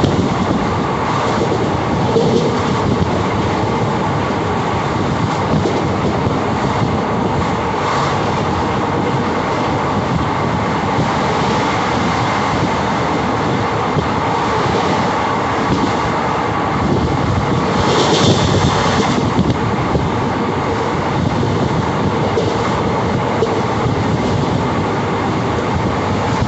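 Passenger train running along the track, heard from on board: a steady rumble with the clickety-clack of the wheels on the rails. About two-thirds of the way through, a brief high-pitched sound lasts about a second.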